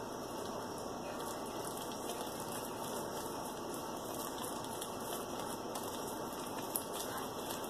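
Teal glitter slime being squeezed and kneaded in bare hands, a steady faint crackling.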